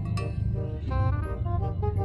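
Background music: a quick melody of short notes over a steady low bass.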